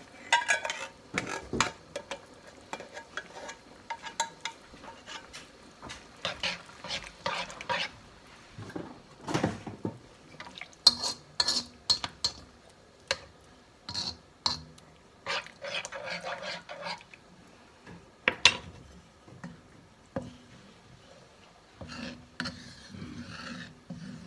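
Wooden spatula scraping and knocking against a metal wok as coconut milk is stirred into sautéed garlic and aromatics, in irregular strokes over a light sizzle.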